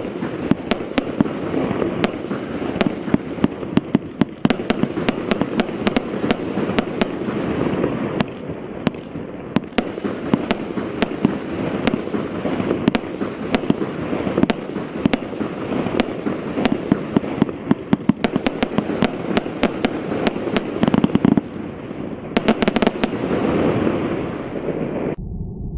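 Vulcan compound firework cake by Evolution firing a rapid, continuous barrage of shots and bursts, several a second, with a flurry of louder bangs near the end before it stops abruptly.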